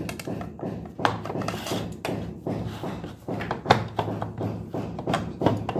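Hands pressing and patting pizza dough flat on a steel plate: a run of irregular soft thuds and taps, about two a second.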